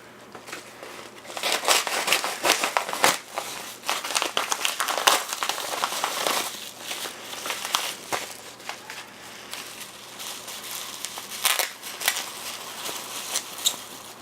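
Crinkling and crackling of material being handled at close range, with many irregular sharp clicks. It starts about half a second in, is busiest in the first half and thins out later.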